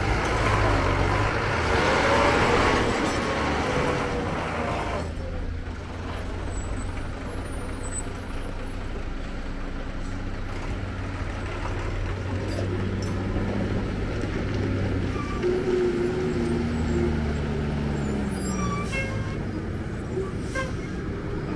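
Lorry diesel engines running at low speed, with a loud rushing noise over the first five seconds or so and an engine note falling away near the end.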